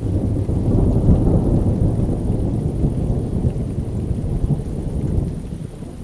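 Thunder rumbling deep and loud, starting suddenly and rolling on for several seconds before easing a little near the end, over steady rain.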